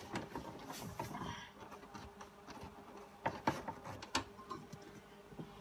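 Clicks, scrapes and knocks of a 1969 Camaro's center console being worked loose and lifted by hand, with a few sharper knocks past the middle, over a faint steady hum.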